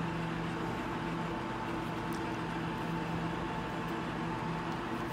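Steady machine hum with a low drone and a higher steady tone above it, with a couple of faint ticks.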